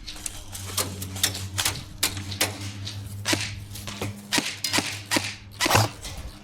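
Airsoft gunfire: scattered sharp clicks and pops at an uneven pace, a couple each second, the loudest near the end, over a steady low hum.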